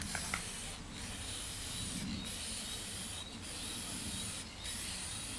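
Aerosol can of gloss lacquer spraying in about five bursts of roughly a second each, with short breaks between, to seal cracks in solar panel glass.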